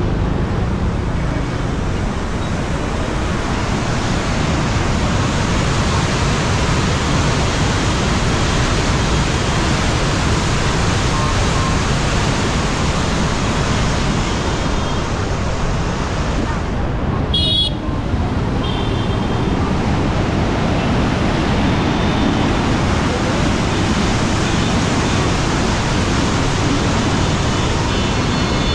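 Steady rushing roar of water pouring through the gates of a river sluice, with passing traffic mixed in.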